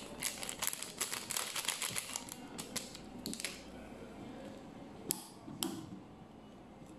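Plastic sachet crinkling and crackling as it is handled and opened: a dense run of rapid clicks for about three and a half seconds, then two sharper clicks near the end.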